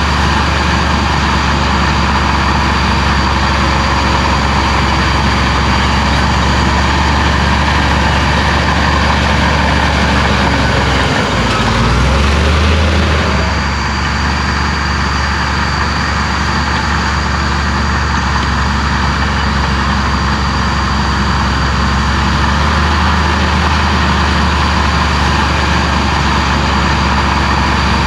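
Heavy diesel engine of a Komatsu bulldozer running steadily under work, with a brief change in its engine note a little under halfway through.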